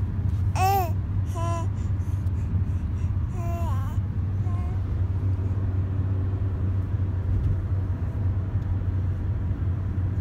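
Baby babbling in a few short, high-pitched coos in the first half, over the steady low rumble of a car on the move.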